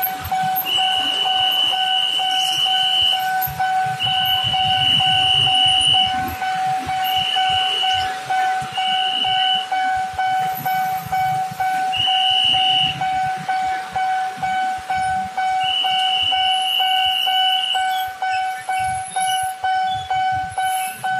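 Railway level-crossing warning alarm ringing with a steady, rapid pulse. A higher-pitched tone sounds on and off over it several times, each for about half a second to two and a half seconds.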